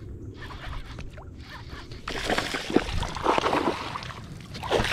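Water splashing and sloshing against a kayak's hull, picking up about two seconds in with a busy run of splashes and one sharp knock.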